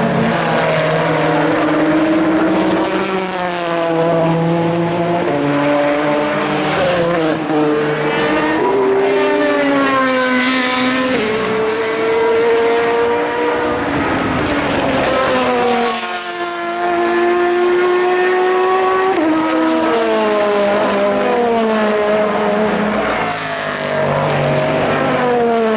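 Endurance race cars accelerating past one after another, engine notes climbing in steps through a series of upshifts and falling away as each car goes by, with two cars often heard at once.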